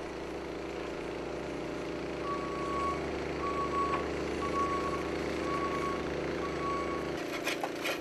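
Skid-steer loader engine running steadily while its reversing alarm beeps five times, about once a second, as the machine backs up. The engine sound drops away about seven seconds in.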